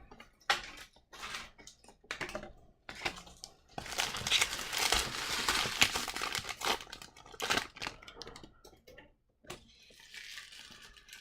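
Trading cards and a pack wrapper being handled: a few seconds of crinkling in the middle, with short clicks and slides of cards being flipped before and after.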